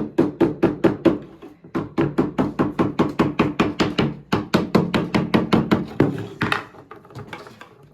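A stick rapped through a hole against a wooden dining chair frame, a fast run of knocks about five a second with a short break, stopping about six seconds in. The tapping drives the chair back loose so it can be pulled off.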